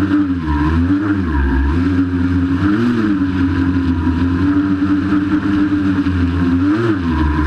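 Giant hexacopter's six electric motors and propellers running at hover, heard from on board the aircraft: a steady buzzing whine with a rushing haze of prop wash. The pitch dips and rises a few times, about one second in, near three seconds and near the end, as the motors change speed to hold position.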